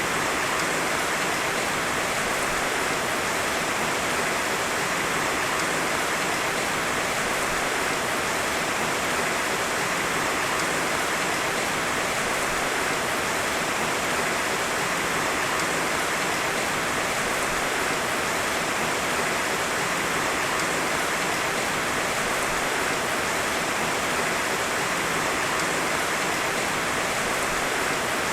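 Heavy rain falling as a steady, even hiss, with no thunder.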